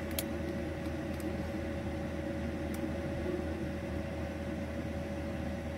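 Bison 2000A parking heater running, its blower fan pushing hot air out of the floor outlet in a steady hum with a constant whine; the burner is lit and the heater is producing heat.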